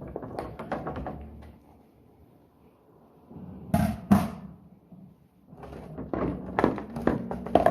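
Dishes and utensils clattering and clinking as they are handled during washing up, with a lull, two sharp knocks about four seconds in, and a quick run of clinks near the end.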